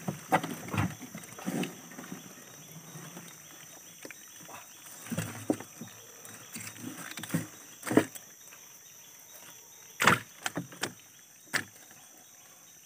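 A wire-mesh prawn trap being handled and emptied against a small boat's hull: scattered knocks and net rustling, with a sharp knock about eight seconds in and the loudest a couple of seconds later.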